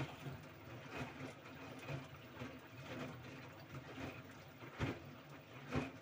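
LG E10B8ND5 front-loading washing machine in its rinse, the drum turning the laundry through water while more water runs in. A steady wash of water with irregular sloshes and splashes, the loudest about five seconds in and near the end.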